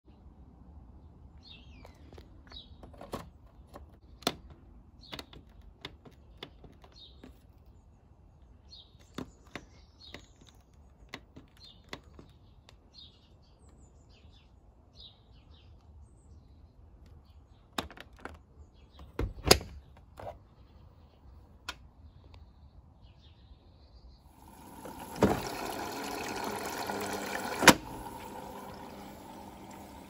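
Sharp clicks from a Beko WM8120 washing machine's controls and door as it is set for a wash, with small birds chirping. About 24 seconds in, the water inlet valve opens and water starts rushing into the drum, a steady fill, with one more loud click a few seconds later.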